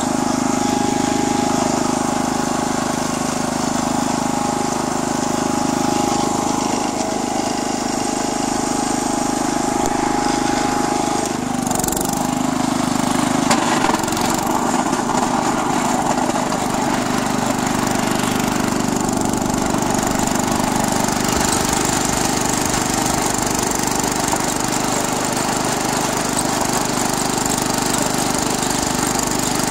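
Wheel Horse 856 garden tractor's 8 hp Kohler single-cylinder engine running steadily under load while the tractor pushes snow with its front blade. A couple of short knocks come about twelve and fourteen seconds in.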